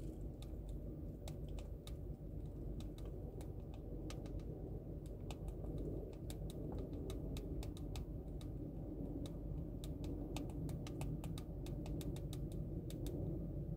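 Quick, irregular taps on a phone touchscreen as someone types, sparse at first and coming faster from about five seconds in, over a steady low rumble inside the car cabin.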